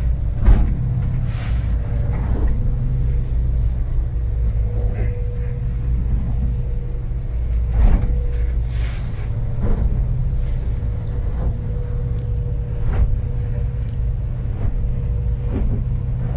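Sargo 31 motorboat's engine droning steadily at a cruise of about 9 knots, heard from inside the closed wheelhouse, with a few short thuds and splashes as the hull meets short, steep storm waves.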